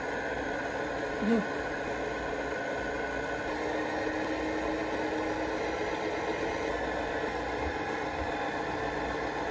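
Electric stand mixer running steadily, its motor humming with a held whine while the beaters work cake batter in a glass bowl. A single short clunk about a second in.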